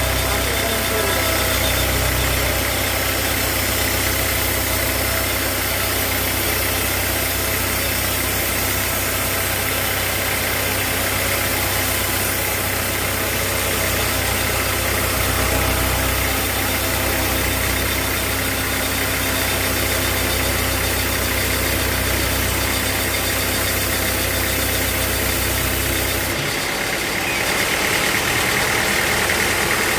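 Sawmill machinery running steadily with an engine-like drone and a low throb; the low throb drops away about 26 seconds in while the higher machine noise carries on.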